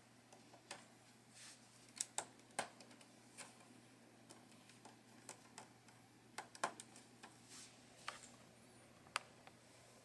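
Plastic LEGO pieces clicking and tapping as fingers handle the hinged ramps at the back of a LEGO flatbed. Irregular light clicks, with a few sharper ones.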